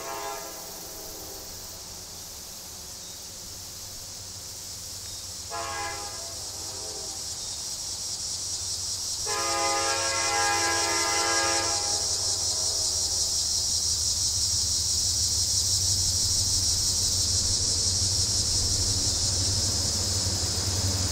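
Norfolk Southern diesel locomotive horn sounding as the train approaches: the end of one blast, a short toot about six seconds in, then a long blast of about two and a half seconds. A steady high buzz runs throughout, and from about halfway the low rumble of the oncoming locomotive grows louder.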